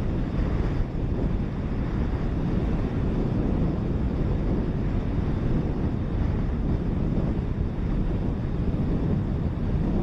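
Steady low rumble of a jet airliner rolling along a runway, heard from inside the cabin: its high-bypass turbofan engine running, mixed with rolling and rushing noise.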